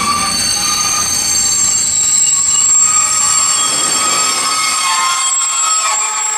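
Intermodal freight train's container and swap-body wagons rolling past close by, their wheels squealing with several steady high-pitched tones over a rolling rumble.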